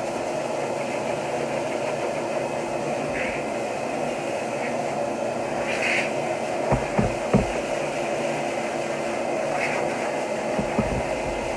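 High-velocity dog dryer running steadily, its hose blasting bulk water out of a wet dog's thick double coat. A few short low thumps come a little past the middle and again near the end.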